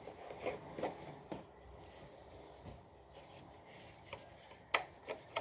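Plastic clicks and rubbing as a Roomba e5 robot vacuum's dust bin is opened and handled, with two sharper snaps near the end.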